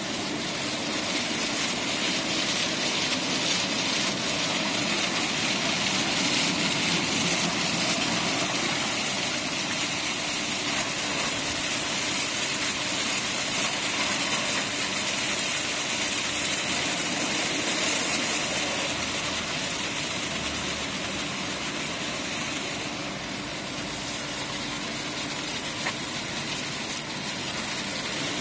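Conveyor tunnel automatic car wash at work on a car: rotating brushes and water and foam spray over the body make a steady hiss, with a low hum of the wash machinery beneath.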